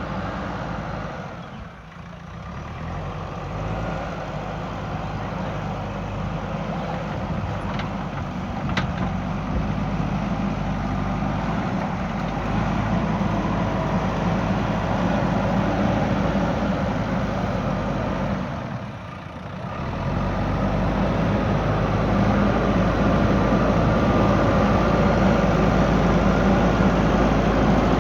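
Heavy diesel engine of a JCB backhoe loader running steadily under work. The sound dips briefly twice, about two seconds in and again about two-thirds of the way through.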